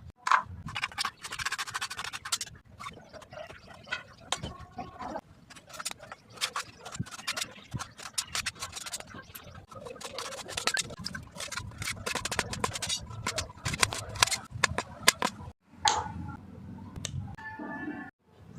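Food-preparation sounds: utensils and ingredients scraping, tapping and clicking in a run of short edited clips, with sudden cuts near the end.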